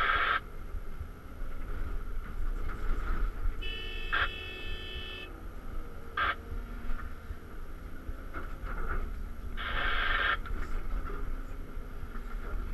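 Cat 323 excavator heard from inside its cab: the diesel engine runs steadily under a mid-pitched hydraulic whine as the machine swings and lowers its empty bucket. Two short loud rushing bursts come at the start and about ten seconds in, a steady chord-like tone sounds for about a second and a half around four seconds in, and there are sharp knocks near four and six seconds.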